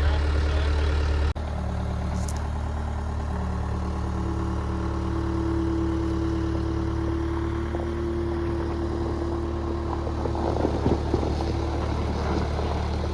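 Engine running steadily at idle, with a steady whine over the middle and a few light knocks near the end.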